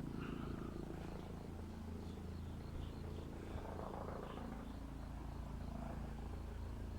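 A steady low hum with a faint rumble, holding even throughout, with a few faint high ticks over it.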